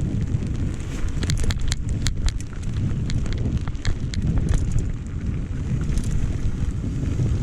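Wind buffeting the microphone, with scattered sharp clicks and rattles typical of a mountain bike moving over a bumpy dirt trail.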